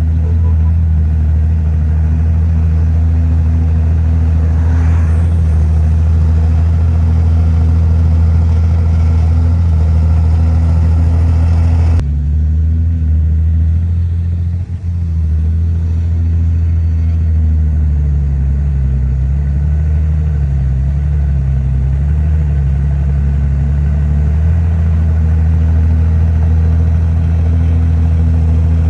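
Heavy diesel engine of earthmoving machinery running steadily with a deep hum. About twelve seconds in the sound changes abruptly, and later the engine pitch wavers up and down for several seconds.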